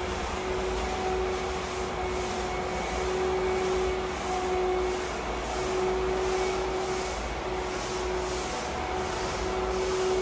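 Paint roller on an extension pole rolling primer back and forth over a concrete floor, a rubbing swish with each stroke about every three-quarters of a second.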